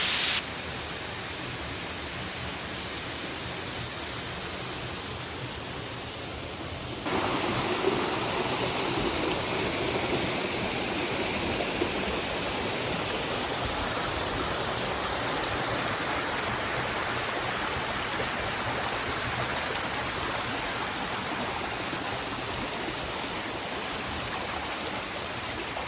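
Steady rushing water, an even hiss with no pauses, which jumps abruptly louder about seven seconds in and then holds steady.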